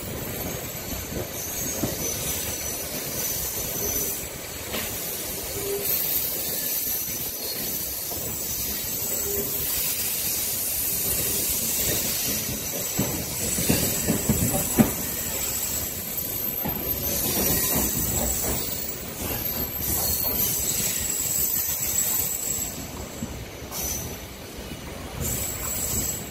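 MEMU electric commuter train running on the rails, heard from aboard as it comes into a station: a steady rumble and rattle of wheels on track with thin, high squeals coming and going, and a few sharp knocks about halfway through.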